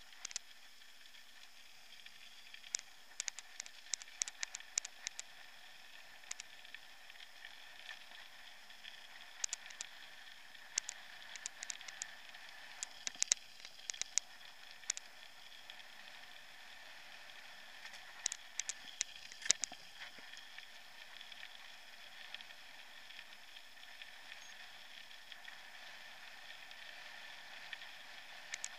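Mountain bike rolling on a gravel path, heard through a bike-mounted action camera: a steady faint rolling hiss with bursts of sharp rattling clicks as the bike jolts over bumps.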